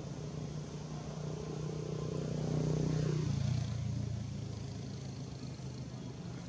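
A motor vehicle's engine passing by: a steady hum that grows louder to a peak about two to three seconds in, drops in pitch as it goes past, then fades.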